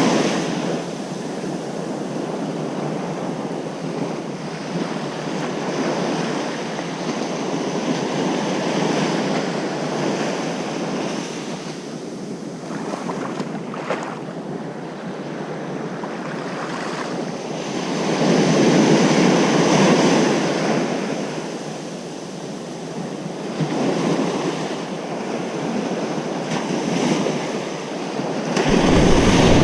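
Ocean surf washing onto a beach: a continuous rush of breaking waves that swells every few seconds, loudest about two-thirds of the way through and again near the end.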